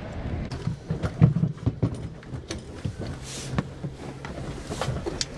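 Boots stepping onto and across a helicopter's textured metal cabin floor: an irregular run of knocks and clunks, loudest about a second in.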